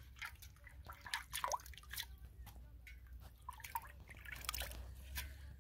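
Leafy greens being washed by hand in a metal basin of water: irregular splashing and dripping water.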